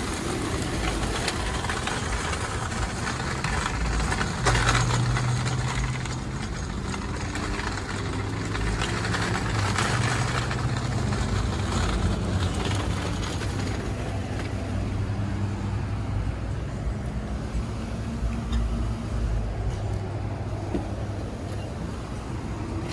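A motor or engine running steadily with a low hum, with a short, louder burst of noise about four and a half seconds in.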